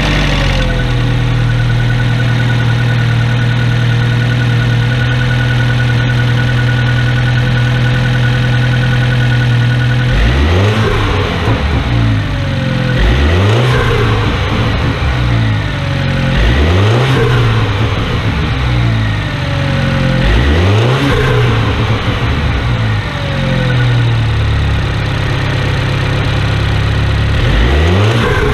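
BMW B48 turbocharged four-cylinder engine in an F30 320i, heard from the open engine bay, idling steadily just after start-up. From about a third of the way in it is revved in about six short throttle blips a few seconds apart, each rising and dropping back to idle. It is running with a newly fitted metal intake pipe in place of a leaking plastic one.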